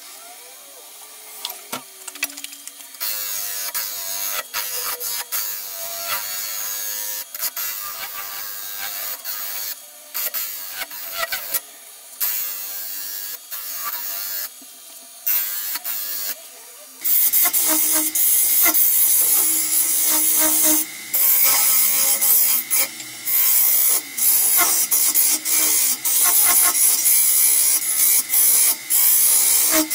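Wood lathe turning a large, very hard planewood bowl blank, with a carbide cutter scraping across the spinning face: a steady hissing, scraping cutting noise, broken again and again by short breaks as the tool comes off the wood. The lathe runs with little cutting for the first few seconds, and about halfway through the cut gets louder and more continuous.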